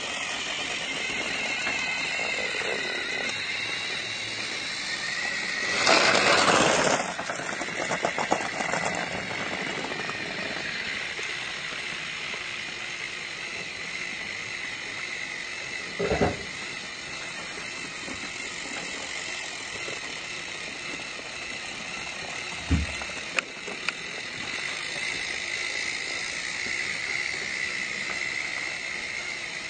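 Small electric motor of a battery-powered toy train whirring steadily, with a loud noisy burst about six seconds in and two short thumps later on.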